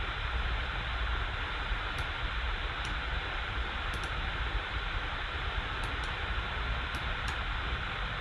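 Steady hiss of background noise with a few faint, scattered mouse clicks.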